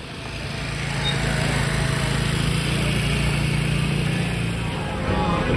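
A vehicle engine running steadily, a low hum with road or motor noise over it, fading in at the start and changing near the end.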